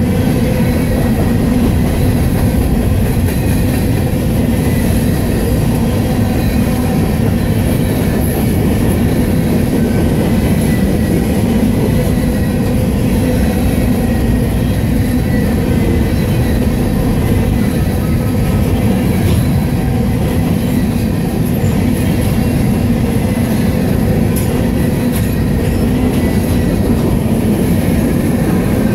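Union Pacific freight train of covered hopper cars passing close by: a loud, steady rumble of steel wheels running on the rails.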